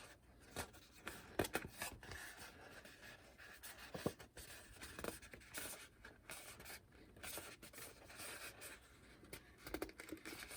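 Faint rustling and crinkling of origami paper being handled and pressed into reversed folds, with a few small crisp clicks of the paper.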